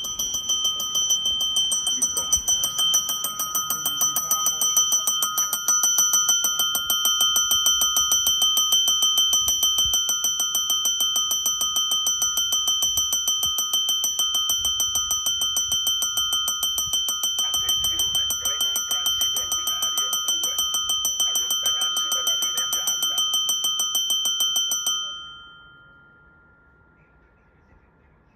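Electric trembler bell on a railway station wall ringing continuously with rapid, even strokes. It stops suddenly about three-quarters of the way through and its ring fades out.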